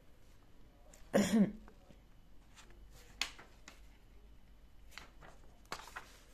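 Sheets of paper being handled over a textbook, with a few light clicks and taps. About a second in there is one short voiced vocal noise from the person, the loudest sound.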